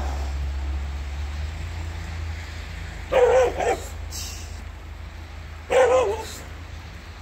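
A dog barks twice, about two and a half seconds apart, over a low rumble that fades away in the first second or so.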